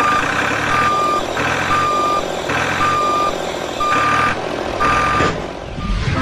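Vehicle reversing alarm beeping about once a second, each cycle a clear steady tone alternating with a harsher beep, over a low rumble.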